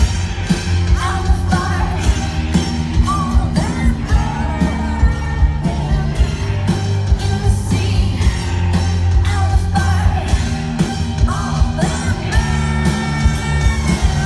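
Live rock band playing loud, recorded on a phone: heavy bass and a steady drum beat, with a woman singing and yelling over it.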